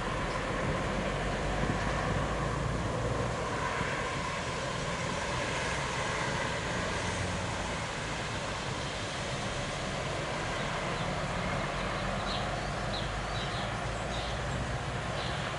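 Steady low rumbling noise of a thunderstorm, easing slightly after the first few seconds, with a few faint bird chirps near the end.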